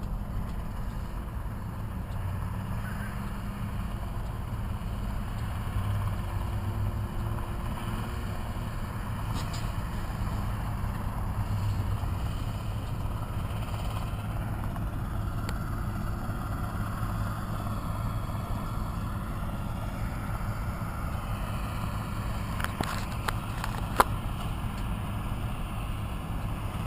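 Tractor and round hay baler running steadily as the baler picks up hay, a continuous low drone. A few light ticks and one sharp click come near the end.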